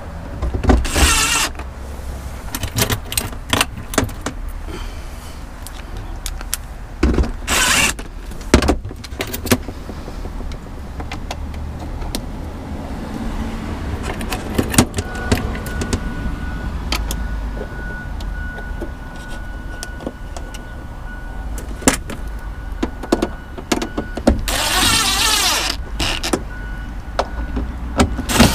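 Cordless drill running in three short bursts: about a second in, about eight seconds in, and a longer one with a wavering pitch near the end. Sharp clicks and knocks of tools and hardware on the metal battery cover come in between.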